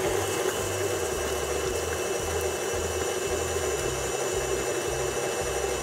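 KitchenAid tilt-head stand mixer running steadily at medium-high speed, its beater creaming butter and sugar in the steel bowl.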